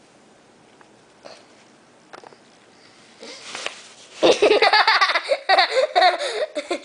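A few faint clicks, then about four seconds in, loud laughter breaks out and carries on in quick bursts.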